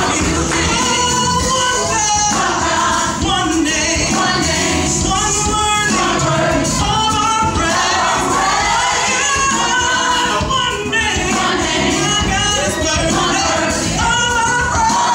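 Live gospel singing: lead singers on handheld microphones, a woman and a man, with a church choir singing along, steady and loud throughout.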